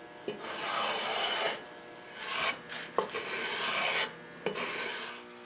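Hand file rasping along the edge of a freshly veneered board in a few long strokes with short pauses, trimming the new veneer flush with the edge.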